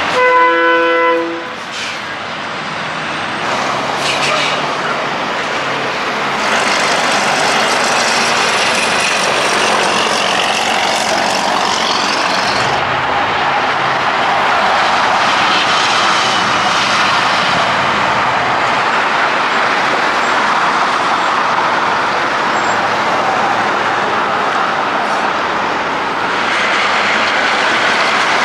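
Semi-trucks and other highway traffic driving past, steady engine and tyre noise, with a loud horn blast of several held tones at once in the first second and a half.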